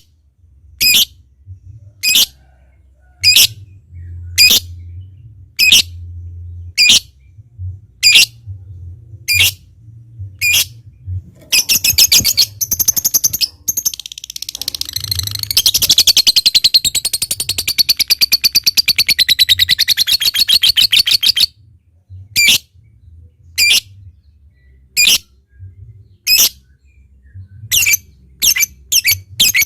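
Lovebird singing: sharp, high single chirps about once a second, then a long, fast, unbroken rattling chatter of about ten seconds (the long 'ngekek'), then single chirps again, coming quicker near the end.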